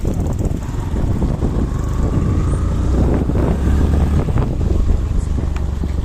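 Wind buffeting the microphone of a moving motorbike, a steady low rumble.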